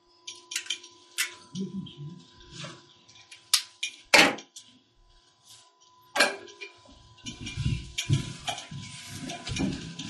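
Marker pen scratching and squeaking on a whiteboard in a string of short strokes, one louder stroke a little past four seconds. A faint steady electrical whine runs underneath.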